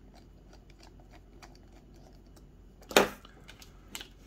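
Small light clicks and ticks of a hex driver and tiny screws being worked into a plastic RC crawler wheel, with a loud, short crinkle of a plastic parts bag about three seconds in and a smaller one near the end.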